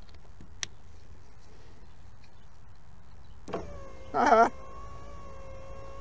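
The 2009 Hyundai Elantra's front passenger power window motor starts up about three and a half seconds in and runs with a steady hum, worked by the passenger door switch whose burnt contacts have just been cleaned: the switch now works. A brief wavering squeal rises over the hum about half a second after it starts, and a single small click comes under a second in.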